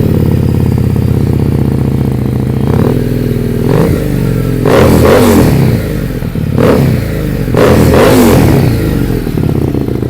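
Harley-Davidson Street 750's V-twin, fitted with Screamin' Eagle aftermarket exhausts, idling and blipped repeatedly on the throttle, the revs rising and falling about five times, with the longest revs around five and eight seconds in.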